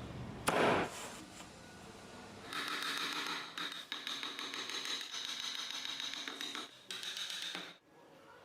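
A small power tool running against wood with a steady high whine for about five seconds, then stopping abruptly; a short sharp knock comes about half a second in.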